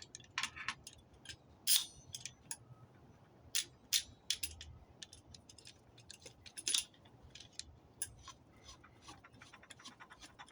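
Metal clicks and clinks from a homemade clamp, a quick-release bar clamp welded to a locking plier, as it is handled and worked. The clicks come at irregular intervals, with a run of quick light clicks near the end.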